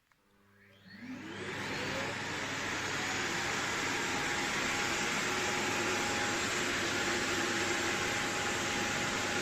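Philips Series 9000 bagless vacuum cleaner switched on with a click: its motor spins up with a rising whine over about two seconds, then runs steadily at full suction.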